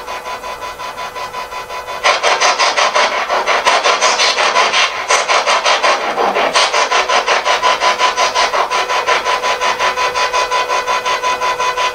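Spirit box, a radio rapidly sweeping through stations, giving a rasping pulse of static several times a second with a steady tone underneath; it gets louder about two seconds in.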